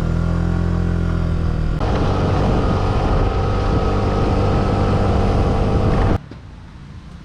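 Suzuki Burgman 200 scooter's single-cylinder engine pulling away and accelerating, its pitch rising for the first couple of seconds, then running steadily at speed on a freshly replaced clutch and drive belt. About six seconds in the sound cuts off suddenly to a much quieter hiss.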